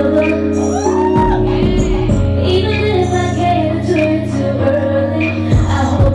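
A woman singing live over an instrumental backing with deep held bass notes that change every second or two and regular high hi-hat ticks.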